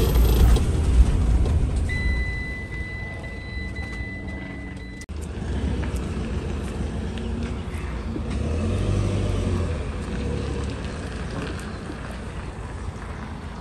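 Motorhome engine running at low speed as the vehicle moves slowly, a steady low rumble that swells slightly near the end, with a steady high-pitched beep lasting about three seconds near the start.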